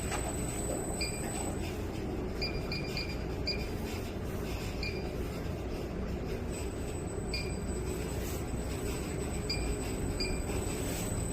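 A 25 kg commercial coin-laundry washing machine running on its test run, with a steady low rumble. Short, high chirps come at irregular moments, about nine times.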